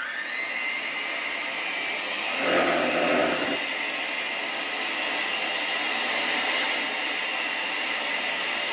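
Handheld electric mixer running, its beaters churning a very thick butter and confectioners' sugar mixture in a metal bowl with a steady whine. A louder, lower-pitched patch lasts about a second, a little over two seconds in. The motor is labouring under the stiff mixture and seems to have hardly any power.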